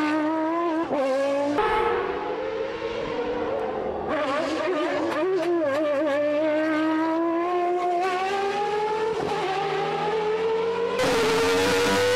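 Renault Espace F1's V10 Formula 1 engine at high revs. Its pitch wavers for the first few seconds, then climbs steadily for several seconds as the car accelerates. Near the end the sound turns louder and harsher, heard from inside the cabin.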